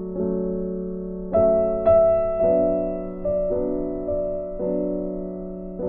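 Background music: chords on a keyboard instrument, each struck and then fading, a new one every half second to second.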